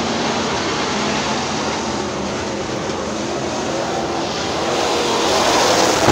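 A pack of dirt-track stock cars running on the oval, engines and tyre noise blending, growing louder in the last couple of seconds as the cars come closer.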